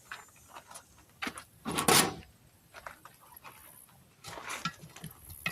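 Steel tire-mounting tool scraping and knocking against the wheel rim and tire bead as a tire is levered onto the rim by hand: a few short scrapes and knocks, the loudest about two seconds in.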